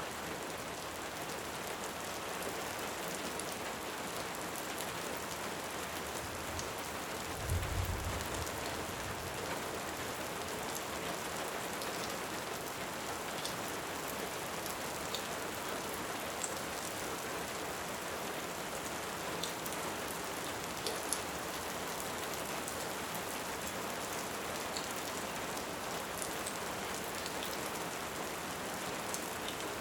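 Steady heavy rain with scattered sharp crackles from a wood fire, and a brief low rumble of distant thunder about seven or eight seconds in.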